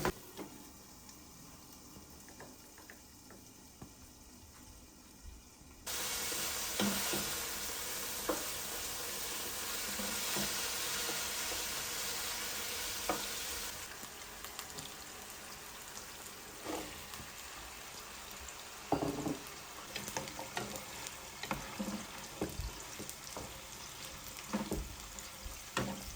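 Food frying in a hot pan: the sizzle starts suddenly about six seconds in and is loud for several seconds, then settles lower, with the knocks and scrapes of a utensil stirring in the pan.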